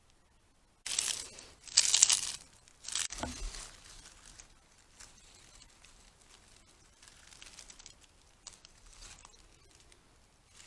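Crinkling and tearing of a thin wrapping material being handled. It comes in three loud bursts in the first four seconds, then fainter rustling follows.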